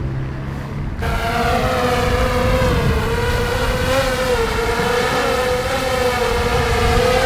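Quadcopter drone's propellers start up about a second in and whine steadily as it climbs away with a baited fishing line hanging below, the pitch wavering slightly. A low wind rumble on the microphone comes before it.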